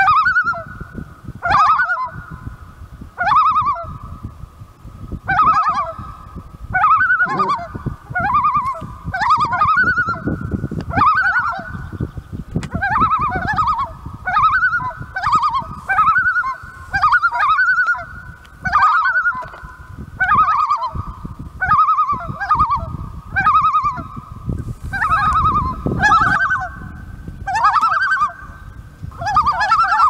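Common loons calling: short, pitched calls repeated about every one and a half to two seconds over a steady held tone. The adults are calling for their chick.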